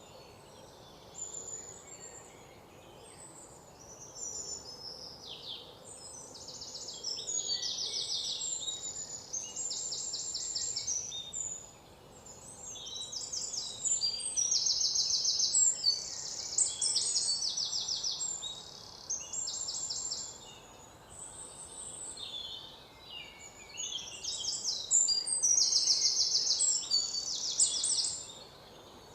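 Small birds singing in rapid, high-pitched trills that come in bursts of a second or two, clustered three times, with softer chirps between them over a faint steady background hiss.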